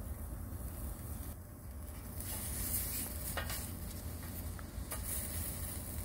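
Sausages sizzling on a metal broiler pan over hot campfire coals, a steady hiss with a faint click or two.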